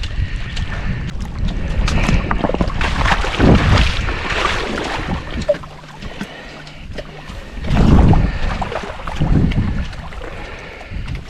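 Lake water splashing and sloshing in irregular surges, loudest about three seconds in and again around eight seconds, with wind rumbling on the microphone.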